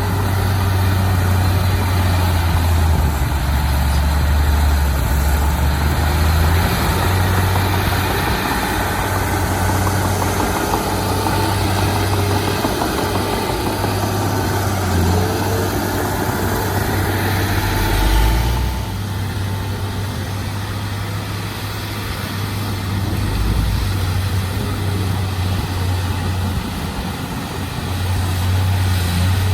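Diesel engine of a Komatsu D31P crawler bulldozer running steadily under working load, its low engine note shifting in pitch several times as the load changes.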